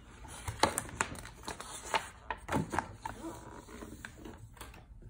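A stiff picture-book page being turned and smoothed flat by hand: paper rustling with a run of sharp crackles in the first three seconds, then softer handling noise.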